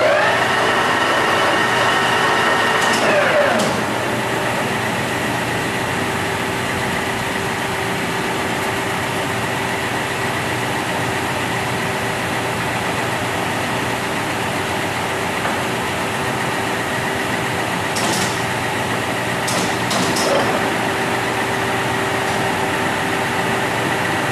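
Nardini 20x120 engine lathe's geared headstock spinning up with a rising whine as the spindle is started, running for about three seconds, then winding down. Under it the machine keeps up a steady hum, with a few sharp clicks and a brief rise again about twenty seconds in.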